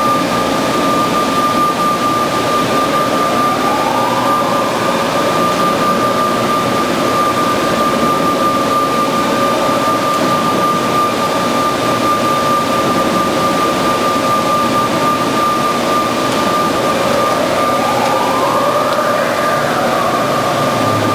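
Band saw running with a steady whine over continuous machine noise; the pitch rises in a glide about four seconds in and again near the end.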